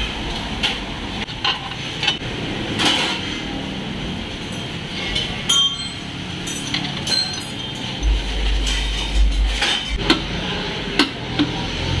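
Scattered metallic clinks and knocks of hand tools and parts being handled around the engine's exhaust manifold, at irregular intervals.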